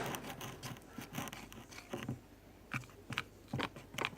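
A spoon stirring a sticky slime mixture of white glue and nail polish in a bowl: irregular wet clicks and taps.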